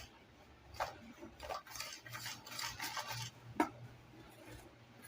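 Dry cake ingredients (flour, baking soda, baking powder and brown sugar) being stirred in a mixing bowl: a utensil scraping and rasping around the bowl, with a few sharper clinks against it.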